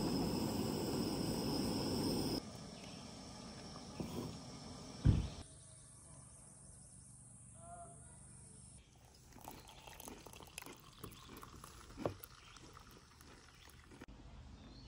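Propane camp stove burner hissing steadily under an enamel percolator for about two seconds, cutting off abruptly. Quieter outdoor campsite sound follows, with a single loud thump about five seconds in and a short chirping call near eight seconds.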